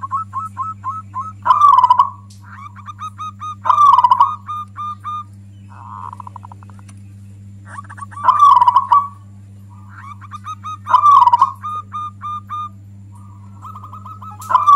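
Zebra dove (perkutut) singing loudly: phrases of quick staccato notes that swell into a loud rolling coo, repeated about every two to three seconds. A steady low electrical hum lies underneath.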